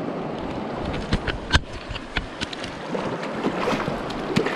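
Shallow rocky stream running steadily, with a run of sharp splashes from a hooked cutthroat trout thrashing at the surface as it is played to the net. The loudest splash comes about a second and a half in.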